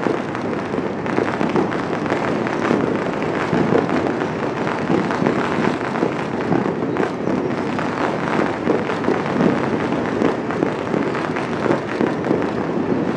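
Fireworks and firecrackers going off all over a city at once: countless overlapping pops and bangs merging into one continuous crackle that never lets up.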